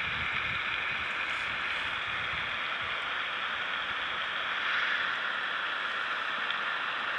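A steady, even hiss with no distinct sounds in it, with faint low rumbles in the first few seconds.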